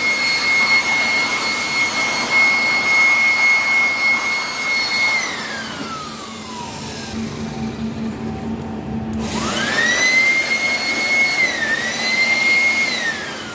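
Fire alarm siren sounding a steady high tone over a rushing hiss. About five seconds in, the tone slides down and dies away. About nine seconds in it winds back up, holds with a brief dip, and starts sliding down again near the end.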